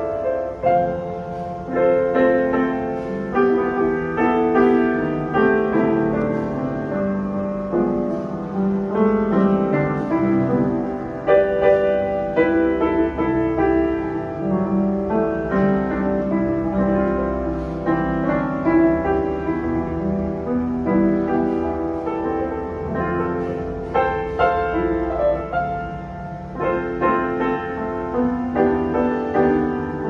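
A 1967 Yamaha S2J upright piano being played, a continuous passage of chords and melody. The piano is freshly restored, its hammers reshaped and voiced and its damper felts new.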